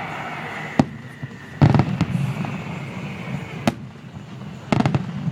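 Fireworks going off: a series of sharp bangs, loudest in a quick cluster about a second and a half in and another cluster near the end, over a continuous low rumble.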